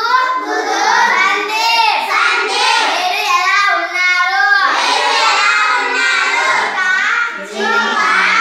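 Children's voices singing in phrases with short breaks between them.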